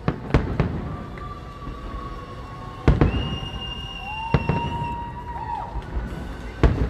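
Aerial fireworks shells bursting: five sharp bangs spread over several seconds, the loudest about three seconds in and near the end. Long steady high tones sound between the bangs.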